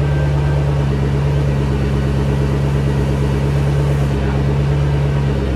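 Ford Mustang engine idling in gear with the rear wheels spinning freely on a lift: a steady engine hum whose tone shifts near the end. With the clutch pedal pressed the wheels keep turning, the sign of a clutch that is not fully disengaging.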